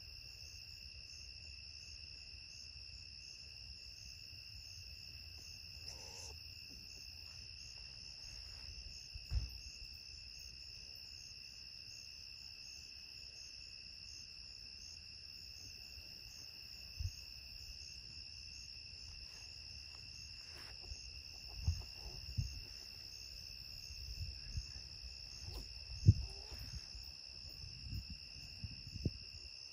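Night insects, likely crickets, chirping in a steady chorus at two high pitches. A few dull low thumps come over it, most of them in the second half, the loudest shortly before the end.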